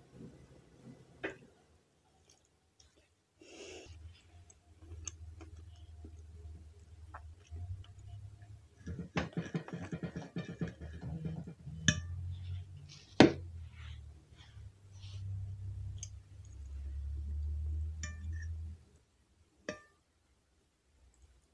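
Metal fork and knife clinking and scraping on a ceramic dinner plate while cutting roast pork loin. There are a few sharp clinks, the loudest about 13 seconds in, and a stretch of cutting a little before that, with close-up chewing underneath.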